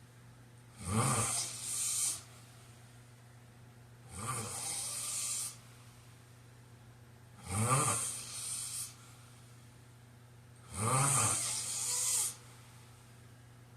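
A man snoring in slow, regular breaths: four snores about three and a half seconds apart, each about a second and a half long. Each snore has a low pitch that rises and then falls, with breathy hiss over it.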